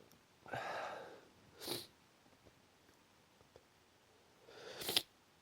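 A person sneezing twice in a fit of repeated sneezes that will not stop: a breathy build-up and a short sneeze about a second and a half in, then a rising intake ending in a louder, sharper sneeze near the end.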